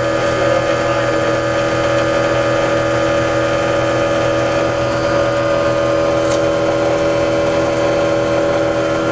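Motor-driven generator set running steadily under a load of light bulbs, a loud even hum made of several steady tones.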